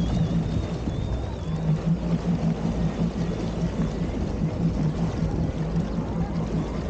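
Jet ski engine running steadily underway, a constant low drone with water rushing and splashing along the hull. A thin high wavering whistle sounds over it in the first second and a half.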